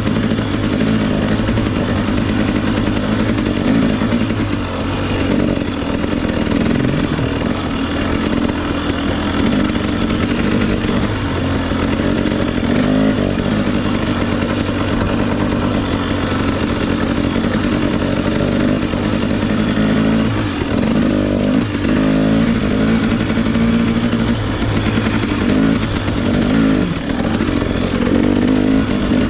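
Two-stroke 300 cc enduro dirt bike engine running steadily under light throttle, its revs dipping and picking back up about two-thirds of the way through.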